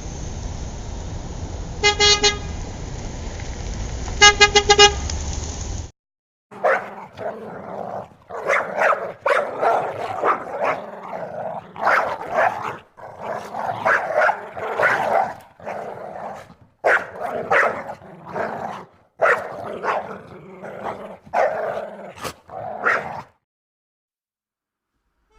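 Car horn honking over steady traffic noise: one short honk, then a quick series of toots a couple of seconds later. After a sudden cut, a dog barks over and over for about sixteen seconds, stopping shortly before the end.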